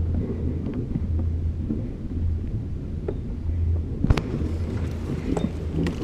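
Sailboat's inboard engine running at idle, a steady low rumble. Over it come light handling clicks and one sharp knock about four seconds in as the stern mooring line is worked off its deck cleat.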